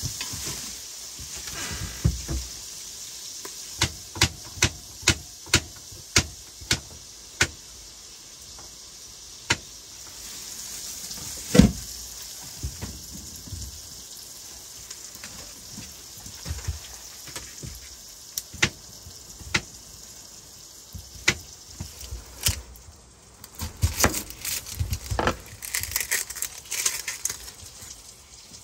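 Diced salt-cured pork belly frying in a pot: a steady sizzle with frequent sharp pops, one louder knock about twelve seconds in, and a busier run of crackles and taps near the end.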